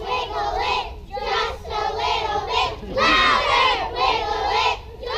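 A group of young children singing together in unison, in short loud phrases with brief pauses, loudest about three seconds in.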